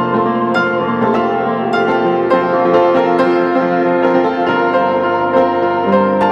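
Background instrumental music: a light melody of separate plucked-sounding notes over held chords.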